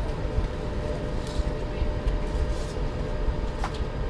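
Steady low rumble and hum of an underground-style train carriage, as if running on the track, with a couple of brief clicks.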